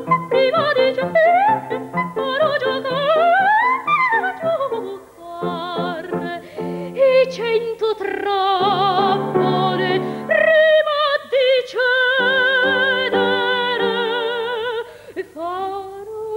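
Operatic soprano singing with grand piano accompaniment. Fast coloratura runs climb and fall over the first few seconds, then she holds long notes with a wide vibrato over repeated piano chords.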